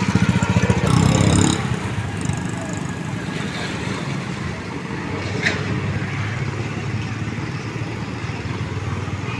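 A motor vehicle's engine running with a fast, low putter. It is louder for the first second and a half, then settles to a steady rumble. A single short click comes about five and a half seconds in.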